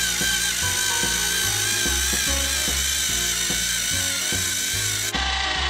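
Battery-powered TrackMaster toy engines pushing against each other, their motors whining steadily and a little unevenly, under background music with a bass line.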